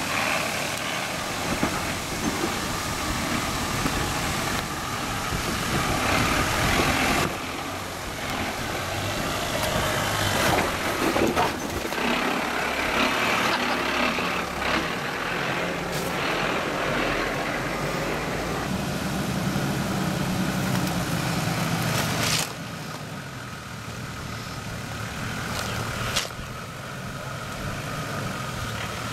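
Toyota Land Cruiser's diesel engine working under load as the 4x4 crawls over rock ledges, its revs rising and falling, with a couple of sharp knocks. Near the end, a Nissan Patrol's diesel engine runs at the foot of the climb.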